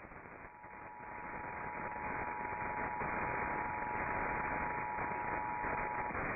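Emergency Alert System two-tone attention signal, 853 Hz and 960 Hz sounded together as one steady tone, heard through heavy radio static that swells over the first couple of seconds. The tone cuts off about six seconds in while the static carries on.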